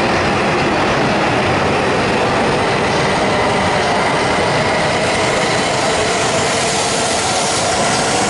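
Akita Shinkansen E6 series Komachi cars, coupled behind an E5 series Hayabusa, rolling past at close range as the train pulls out of the station: a steady, loud rushing noise of the moving train, with a faint steady whine in it from about three seconds in.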